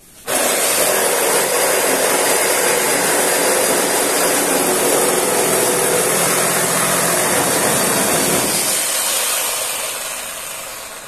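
Tolsen FX Force 79540 710-watt corded reciprocating saw starting sharply and cutting through a clamped wooden board. About eight and a half seconds in the deeper part of the noise drops away as the blade breaks through, and the saw fades out toward the end.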